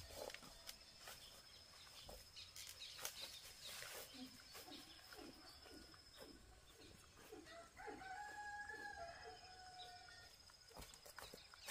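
A rooster crows once, a single long call about two-thirds of the way in, over scattered faint clicks and rustles.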